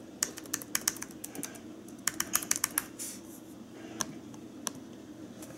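Typing on a laptop keyboard: two quick runs of key clicks, then two single keystrokes near the end.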